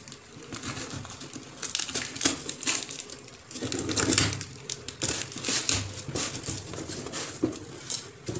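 Packing tape being peeled and torn off a cardboard box, with crinkling and rustling of tape, paper and cardboard, busiest about halfway through; the box flaps are opened near the end.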